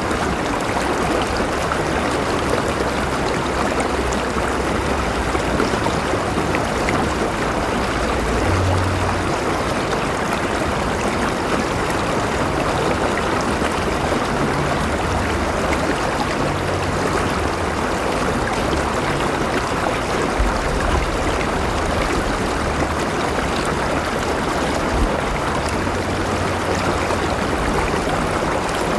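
A river flowing steadily, a continuous rush of water with some gurgling.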